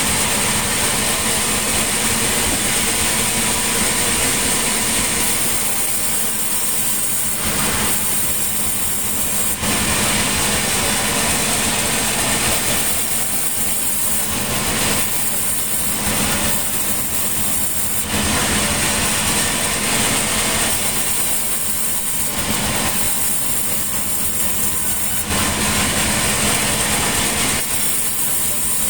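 Sawmill machinery running with a steady engine drone; its higher sound drops away and returns every couple of seconds.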